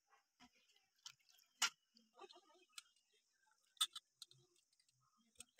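Hands rinsing small anchovies in water in a stainless steel bowl: a handful of faint, scattered clicks and wet taps, the two clearest about one and a half and four seconds in.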